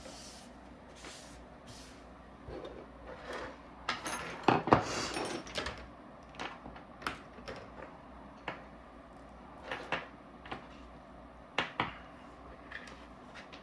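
Small paintball-marker parts being set down and moved around on a work surface: scattered light clicks and knocks, with a short burst of clatter about four seconds in.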